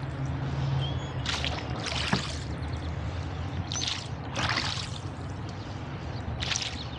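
Oars of a small wooden rowboat swishing and splashing through the water, three strokes about two and a half seconds apart.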